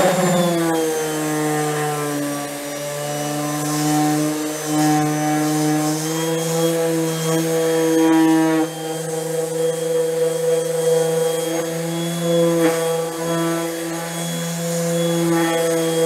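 Parkside PEXS 270 C3 random orbital sander running at speed setting 4, its 120-grit disc sanding bare mahogany: a steady motor hum with overtones. The pitch drops as the pad bears down on the wood right at the start, then shifts slightly as the pressure changes.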